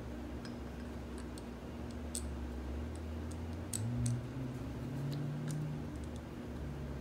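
Light, scattered clicks and ticks of a small bolt and a billet aluminium brake-line clamp being handled and the bolt threaded in by hand, over a low steady hum.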